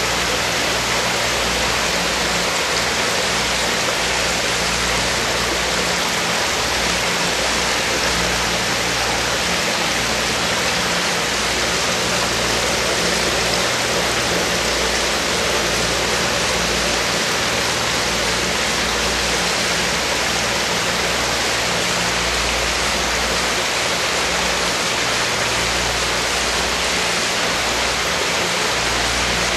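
Steady rush of water running into and through a live-bait holding tank, with a low hum underneath.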